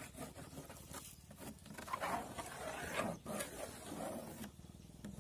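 Faint, irregular scratching and rubbing as a fin pattern is traced around onto a flattened PVC sheet, with a few short louder strokes.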